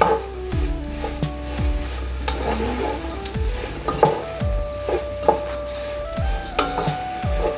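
Sliced okra sizzling in hot oil in a pan while a spatula stirs it, with repeated short scrapes against the pan. A soft instrumental melody plays underneath.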